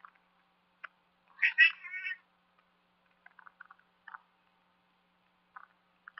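A domestic cat meows once, about a second and a half in, a short call in two quick parts. Faint short chirps come and go around it.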